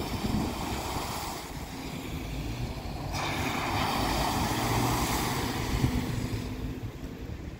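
Two vehicles drive one after the other through deep floodwater on a road. Their tyres throw up a rushing splash of spray over a low engine hum. The second, an SUV, comes in suddenly about three seconds in and is the louder of the two.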